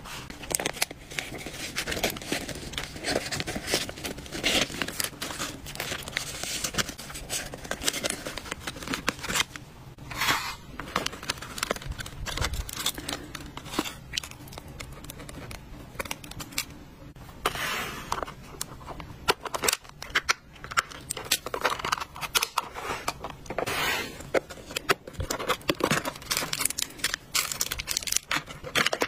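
Close-up handling of packaging: crinkling plastic wrappers and rustling paper cards, with many light clicks and taps as items are set into plastic storage boxes.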